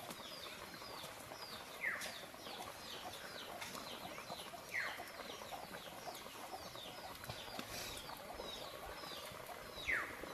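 Birds chirping: a steady run of short, high, falling chirps, with three louder falling calls a few seconds apart, over a faint steady hiss of fish pieces frying in hot oil.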